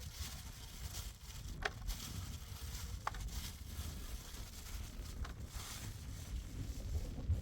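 Low wind rumble on the microphone over a faint steady hiss, with three short faint taps spread through it.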